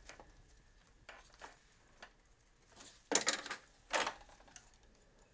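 Metal hand tools, a wrench and a ratchet, being handled: a few light clicks, then two louder clattering clinks about three and four seconds in.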